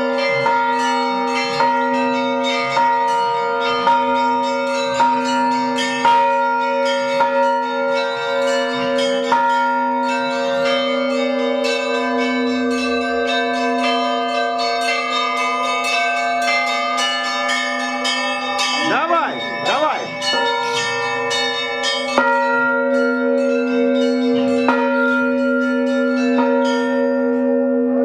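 Orthodox church bell ringing (zvon) heard close up in the belfry: several bells are struck by their clappers, pulled on hand ropes. Rapid strikes of the small bells sound over heavier strokes about once a second, and the deeper bell tones ring on between the strokes.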